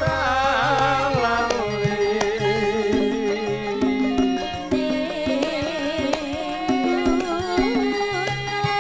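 Javanese gamelan accompaniment for tayub: a singer's wavering, ornamented vocal line over steady ringing metallophone tones, repeating low gong-like notes and frequent kendang drum strokes.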